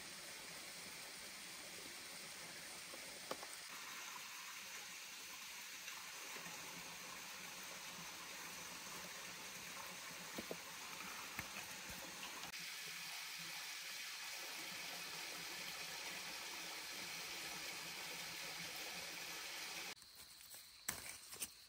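Forest stream water running with a steady hiss, with a few faint clicks. Near the end it turns quieter, and a few sharp snaps sound as leaves are handled.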